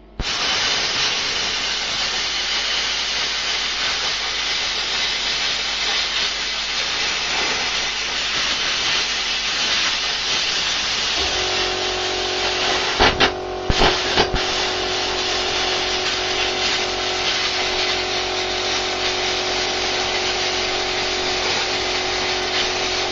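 Air plasma cutter torch hissing steadily as it cuts through a solid steel circular saw blade. About 11 s in, a steady machine hum starts underneath, and a few sharp cracks follow a couple of seconds later.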